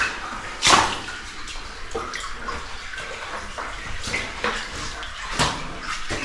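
Water sloshing and splashing as a person moves through a flooded cave passage. There are smaller irregular splashes and two louder ones, about a second in and near the end.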